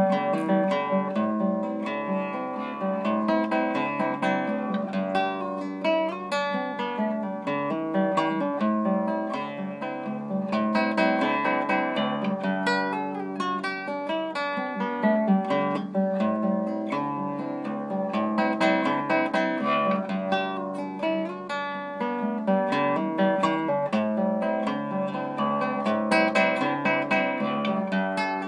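Solo nylon-string classical guitar played fingerstyle: a continuous instrumental passage of plucked notes and chords.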